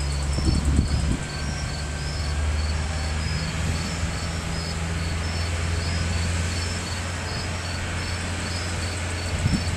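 Heavy construction machinery's engine running at a steady low hum, with night insects chirping in an even, repeating rhythm above it.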